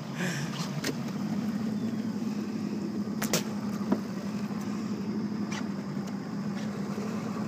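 Bass boat's motor running steadily at low speed as the boat moves slowly across calm water, with a few light knocks on the hull or deck.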